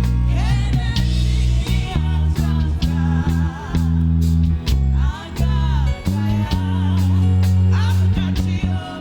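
Worship music with a strong, sustained bass line and guitar, and a singing voice over it.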